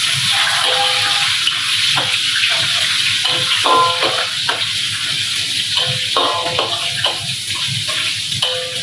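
Vegetables sizzling in hot oil in a steel wok as a metal spatula stirs them, scraping and knocking against the wok at irregular moments over a steady frying hiss.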